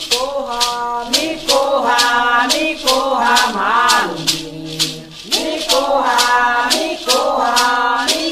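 A voice singing a ponto cantado, a Jurema chant in Portuguese, over a maracá rattle shaken in a steady beat.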